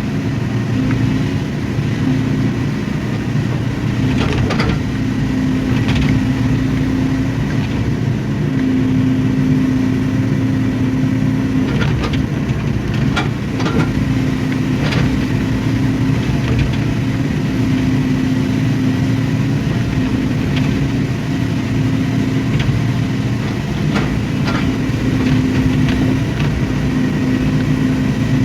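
Hydraulic excavator's diesel engine running steadily, its note coming and going every few seconds as the hydraulics take load, with a few sharp knocks and scrapes from the bucket working the soil.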